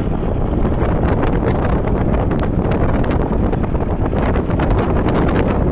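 Wind rushing and buffeting on the microphone from a moving vehicle, over steady road noise.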